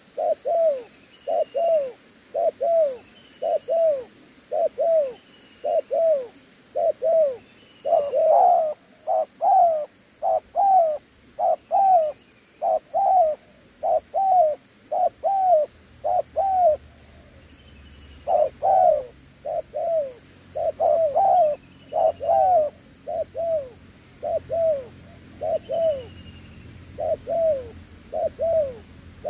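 Spotted dove cooing: a long run of short, falling coo notes, mostly in pairs, with a short pause near the middle. A faint low steady hum comes in about halfway.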